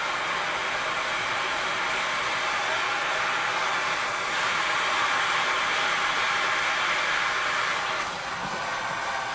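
Plumber's acetylene torch flame hissing steadily while heating a brass shower valve's joint to sweat in lead-free solder. It gets louder about four seconds in and drops back about eight seconds in.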